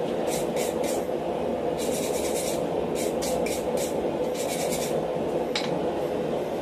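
Hand wire brush scrubbing forge scale off a hot steel piece held in tongs, in four bursts of quick scratchy strokes, over a steady low hum. A single sharp click comes near the end.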